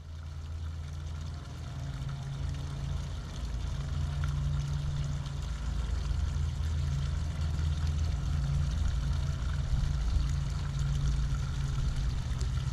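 A motor running with a steady low hum that wavers a little in level.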